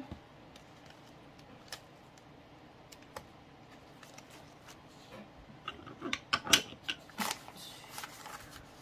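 Paper banknotes being handled and counted: faint rustling with occasional light crinkles, then a flurry of crisp paper crackles and snaps about six to seven seconds in as the bills are flipped through.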